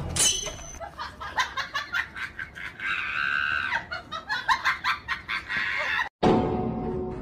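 A chicken clucking in a quick run of short calls, after a brief falling whistle at the start; background music comes back near the end.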